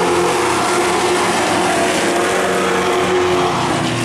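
A pack of short-track stock car engines running hard at racing speed. The pitch falls near the end as cars pass by.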